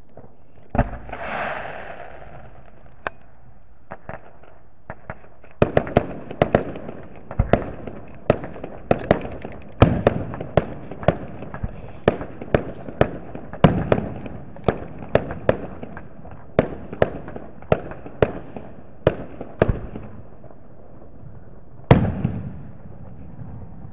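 Fireworks going off. A bang about a second in is followed by about a second of hiss. From about six seconds, a rapid string of sharp shots and bursts comes at roughly two a second for some fourteen seconds. One loud aerial burst near the end trails off in a crackle.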